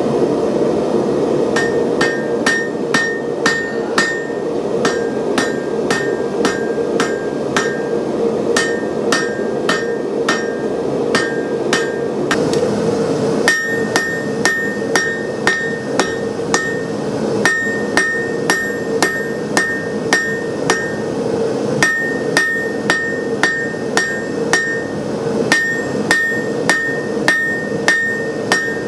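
Blacksmith's hammer striking hot steel bar stock on an anvil in a steady rhythm, about two blows a second, each with a ringing ping, with a short pause about twelve seconds in. A steady roar from the gas forge burner runs underneath.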